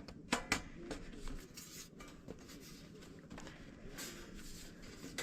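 Light handling sounds of camp gear being fitted together: two sharp clicks about half a second in, then scattered small clicks and rustling.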